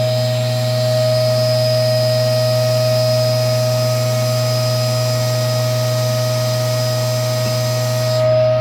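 Key-cutting machine running: a steady motor hum and whine with a hiss from the cutter working a key blank, the hiss falling away shortly before the end.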